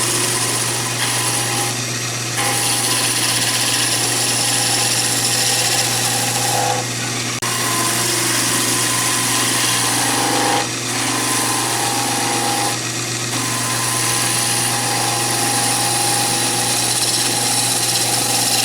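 Conover wood lathe spinning a chair-leg blank, its motor humming steadily while a turning tool cuts the spinning wood with a steady hiss. The cut lifts off briefly about four times as the tool is repositioned.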